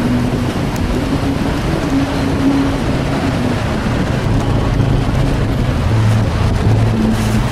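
Engine of a moving vehicle running steadily, with continuous road and wind noise; the engine tone shifts in pitch a few times.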